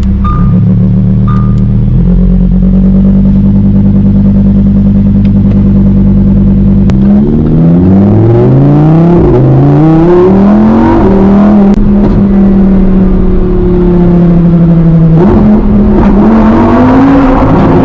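Lamborghini supercar engine running at a steady pitch, then accelerating about seven seconds in, its pitch climbing and dropping back through several quick upshifts before holding steady, with another rise near the end.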